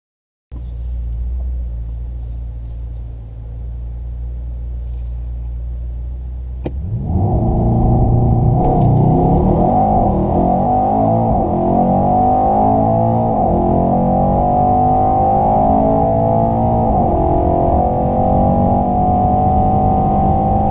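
Mercedes-AMG E 63 S 4Matic+'s twin-turbo V8, heard from inside the cabin, running steadily with launch control armed. About seven seconds in it launches at full throttle after a sharp click. It pulls hard through the gears, the engine note climbing and then dropping at each of several upshifts.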